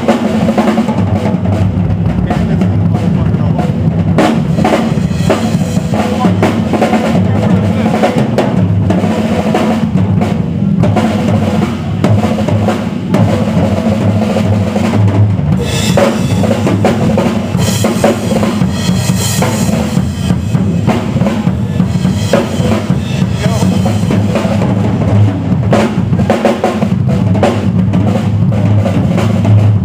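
Live drum solo on a rock drum kit: fast, dense bass drum, snare and tom strokes. For a few seconds past the middle it turns brighter and hissier with crashing.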